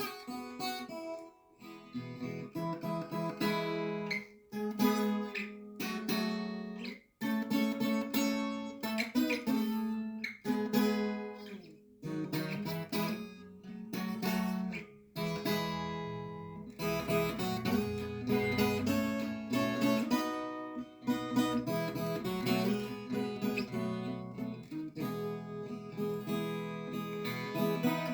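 Acoustic guitar music.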